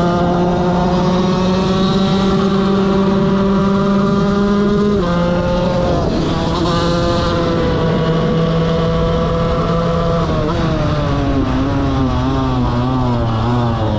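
KTM 125 motorcycle's single-cylinder engine running hard at full throttle, its pitch creeping up and then dropping sharply twice, about five and ten seconds in, as it shifts up a gear. Near the end the revs waver up and down.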